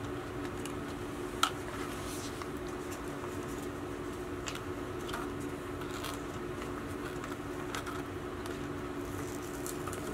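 Light clicks and taps of plastic toy cake pieces being handled and fitted together, with one sharper click about a second and a half in, over a steady low hum.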